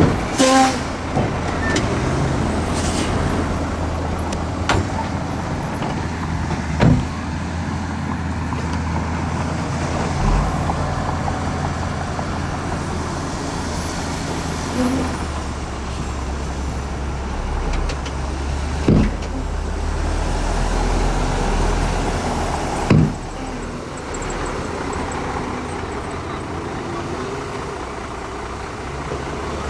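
Heavy diesel engine running steadily, with four sharp clanks: one near the start, then about 7, 19 and 23 seconds in.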